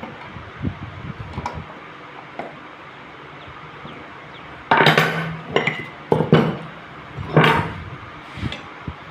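Metal clanks and clinks as a car starter motor and steel tools are handled on a workbench: a run of sharp knocks from about five seconds in, the loudest just before five seconds and again near seven and a half, over a steady hiss.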